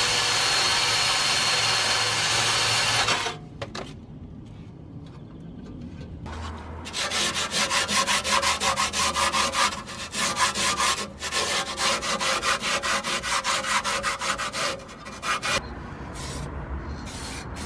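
A power tool runs steadily for about three seconds and stops suddenly. Then a rusty steel brake dust shield is scrubbed by hand with an abrasive in quick back-and-forth strokes, several a second, with two short breaks and a few slower strokes near the end. The scrubbing takes off rust before the shield is painted.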